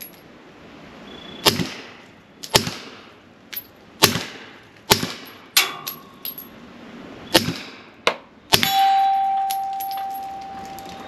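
Suppressed 9mm Glock 43X pistol firing 147 grain subsonic rounds through a full-length suppressor: about seven sharp shots at an irregular pace, still pretty loud. After the last shot a long metallic ring sounds and slowly fades.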